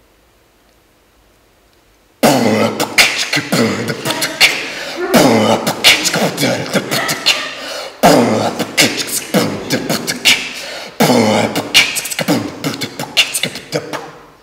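A man's voice making fast, harsh mouth noises in imitation of a frenzied violin performance. It starts suddenly about two seconds in and comes in four bursts of about three seconds each.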